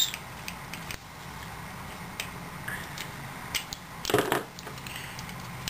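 Small clicks and ticks of a plastic kit being handled and fitted together, with a louder short bump about four seconds in.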